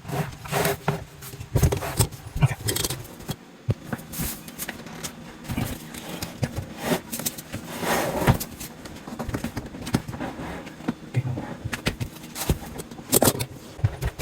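Irregular clicks, taps and scrapes of hands and small tools working on a dishwasher's electrical wiring connection, with a cluster of sharper knocks near the end.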